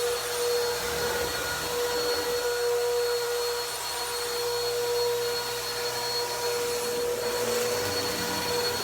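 Vacuum cleaner running on carpet: a steady rushing hiss over a constant motor whine, with a low rumble that rises and falls as the head is moved.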